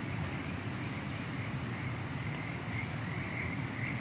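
A steady chorus of calling animals, a continuous wavering high trill, over a low rumbling haze, with a few faint clicks.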